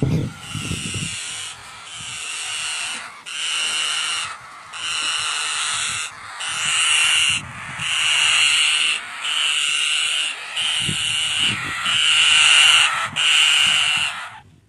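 Green parrot chicks in a tree-hole nest calling over and over: about ten harsh, drawn-out calls, each about a second long, with short breaks between them.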